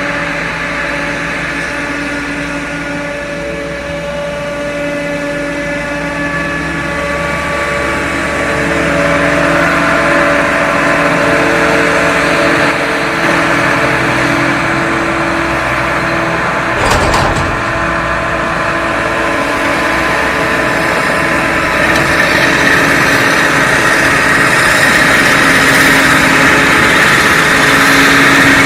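Heavy farm machinery running: diesel engines with several steady whining tones over a noisy hum. It grows louder partway through, with one brief knock a little past halfway.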